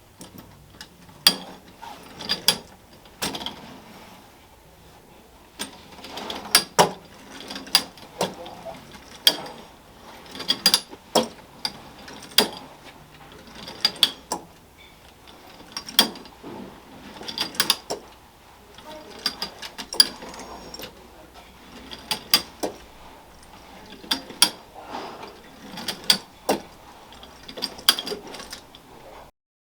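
Marx Jumpin' Jeep tin-litho clockwork wind-up toy running: the spring motor whirs while the tin jeep clatters in clusters of sharp clicks every second or two.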